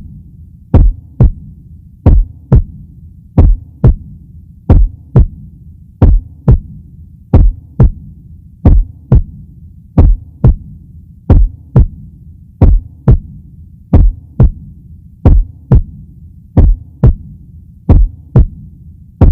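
Heartbeat sound effect: paired lub-dub thumps repeating evenly about every 1.3 seconds, over a steady low hum.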